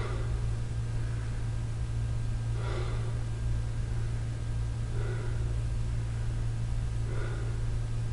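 A person breathing hard after exertion, four breaths about two seconds apart, over a steady low hum.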